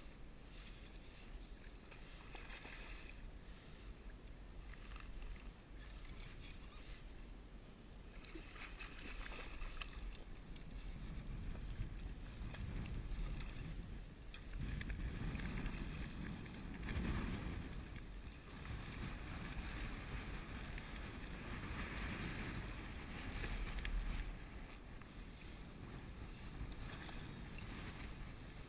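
Choppy water slapping and sloshing against a fishing kayak's hull, with wind rumbling on the microphone; it grows louder in the second half, with surges in the middle and again later on.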